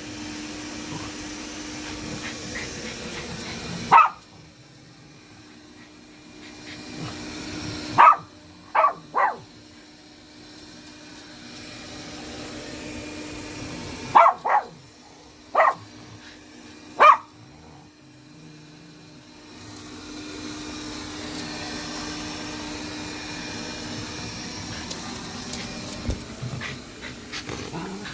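A small dog barks at a running robot vacuum cleaner: about eight short, sharp barks, some singly and some in quick pairs. Under them runs the robot vacuum's steady motor hum and brush whir.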